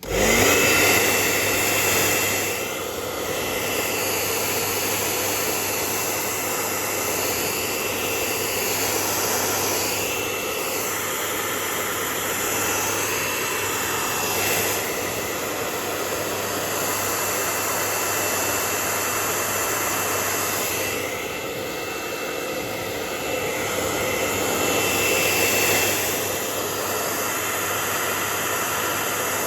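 Hair dryer running steadily, a constant rushing blow with a thin high whine, as it blows hot air onto freshly applied exhaust repair paste to harden it.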